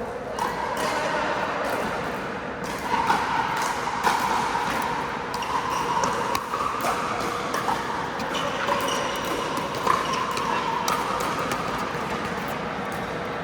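Indoor pickleball play: sharp pops of paddles hitting the plastic ball and the ball bouncing on the court, at irregular intervals, over the echoing room noise of a large hall with a steady faint hum.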